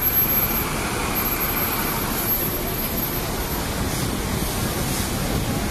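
City street traffic: a double-decker bus driving past close by, then a steady rumble of engines and tyres.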